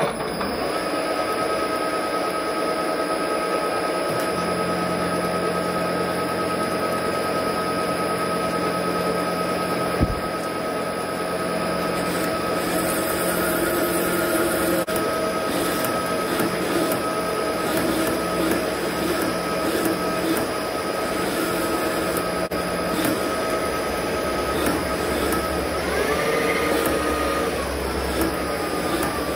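Metal lathe running steadily with its chuck spinning while the tool cuts a metal bush to length under a coolant spray. The sound is a continuous machine hum with a few steady tones, a lower hum joining about four seconds in, and a single knock about ten seconds in.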